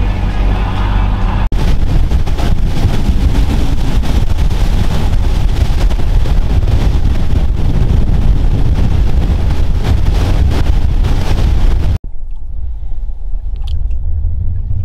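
Boat motor running with the boat underway, heavy wind buffeting the microphone over the engine rumble. About twelve seconds in it cuts to a quieter, steady engine hum.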